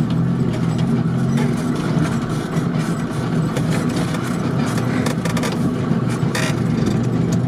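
Off-road vehicle engine running steadily under load while driving over a rough track, with a few short knocks and rattles from the vehicle.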